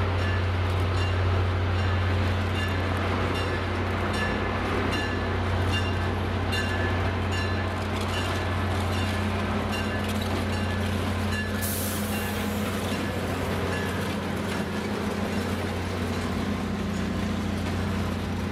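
EMD FL9 diesel-electric locomotive pulling slowly past with its train: a steady deep engine rumble under the locomotive bell ringing at an even pace. About two-thirds through the bell fades, a hiss comes in, and the passenger cars roll by.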